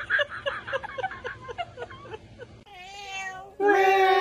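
Giggling laughter in quick pulses, about four a second, which stops suddenly. Then a domestic cat meows twice: a wavering call, then a longer, louder meow that is the loudest sound here.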